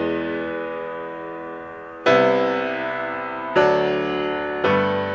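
Background piano music: slow chords, each struck and left to die away, with fresh chords about two seconds in, again a second and a half later, and once more near the end.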